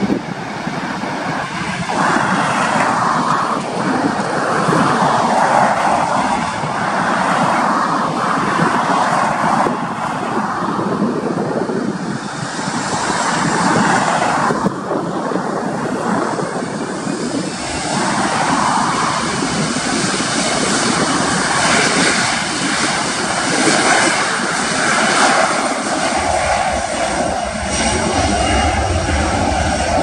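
Boeing 737 Classic's CFM56 jet engines running steadily as the airliner taxis onto the runway, a continuous whooshing hum that rises and falls. A deeper rumble joins near the end.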